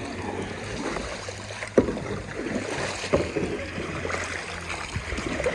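Kayak paddling: a double-bladed paddle dipping and pulling through calm water with splashing and dripping, and a sharp tap with each stroke about every second and a half.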